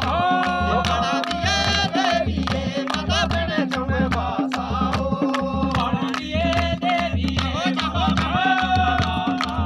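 Devotional folk song (bhajan) sung over a barrel drum beating a steady rhythm, about three beats every two seconds.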